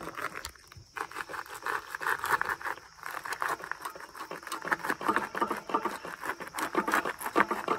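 Headset bearing of an Ecotric fat-tire e-bike clicking and crackling in an irregular run as the handlebars are turned. The bearing has a flat spot, so the steering catches at one point.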